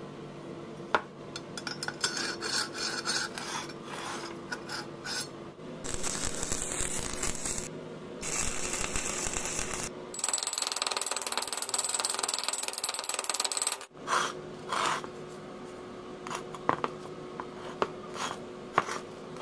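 Scraping and rubbing on steel in several stretches a few seconds long, the loudest near the middle, with clinks and knocks from the steel pieces being handled before and after.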